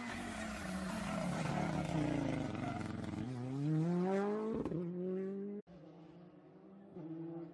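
Rally car going past at speed, its engine note climbing sharply as it accelerates away. The sound cuts off abruptly about three-quarters of the way through, and a quieter, steadier engine note follows.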